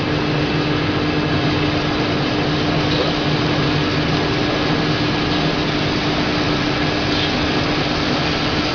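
High-frequency spiral fin tube welding machine running: a steady, even drone with a constant hum.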